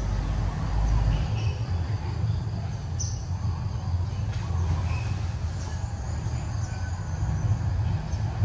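Outdoor ambience: a steady low rumble with scattered short bird chirps over it.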